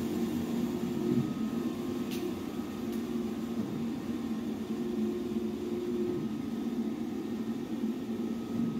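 Large-format flex printer running in a print shop, giving a steady mechanical hum.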